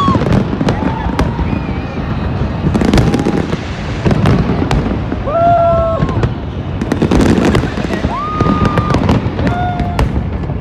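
Aerial fireworks going off in quick succession: many sharp bangs and crackles over a continuous low rumble of bursts.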